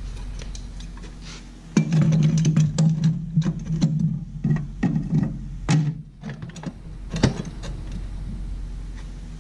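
Aluminium throttle pedal and bracket being set into a car's sheet-metal footwell by hand: a string of irregular clunks, clicks and scrapes of metal on metal, busiest about two to six seconds in, with one sharp knock around seven seconds.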